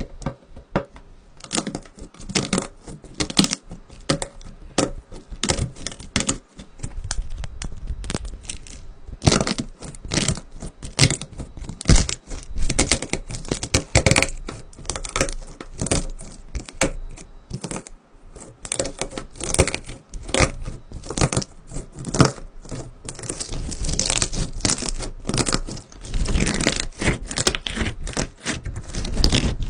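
Stiff, waxy slime being worked by hand, giving an irregular run of crackling and tearing sounds. The sounds become denser after the first third.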